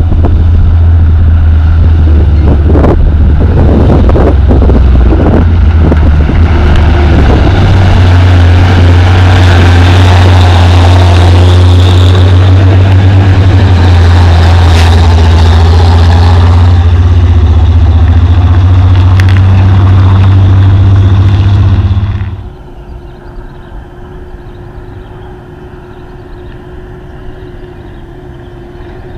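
Hino 500 dump truck's diesel engine running loud as the truck drives close past on a dirt haul road, a steady low drone with several sharp knocks in the first seven seconds. About 22 seconds in the loud engine sound drops away suddenly, leaving a faint steady engine hum.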